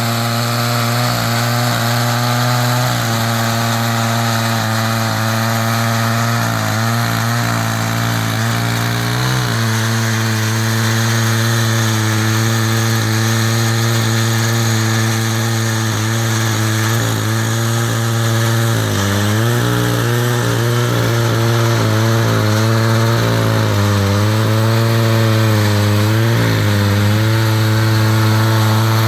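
Chainsaw on an Alaskan chainsaw mill, running steadily while ripping a walnut log into slabs. Its engine pitch dips briefly a few times, around a third of the way in, about two-thirds in and again a little later.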